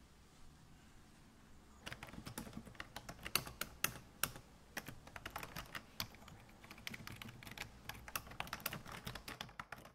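Typing on a laptop keyboard: irregular key clicks that begin about two seconds in, after a stretch of near quiet.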